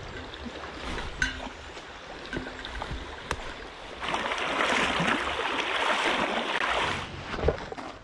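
Shallow creek water running over rocks. The rush grows louder for about three seconds from midway, as a hand reaches into the stream, with a few light knocks before.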